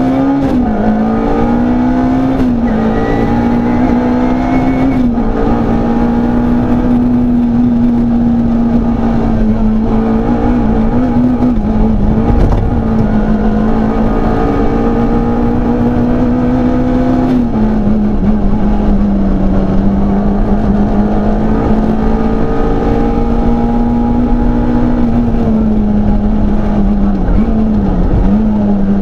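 Peugeot 106 Rallye's four-cylinder engine heard from inside the cabin, held at high revs under hard acceleration, its pitch climbing slowly through each gear and dipping briefly at gear changes several times.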